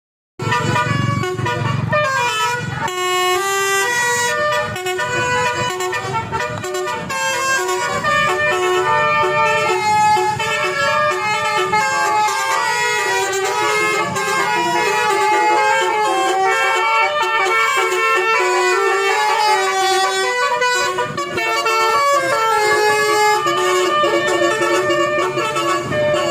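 Indonesian tour bus's 'telolet' musical air horn playing a long melody, its tones stepping from note to note throughout.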